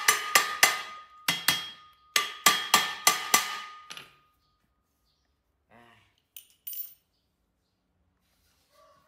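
Hammer blows on a brush cutter's metal gearhead, which is stuck tight on the shaft: quick ringing strikes in three bursts, about a dozen in all, over the first four seconds. A couple of light clicks follow near the middle.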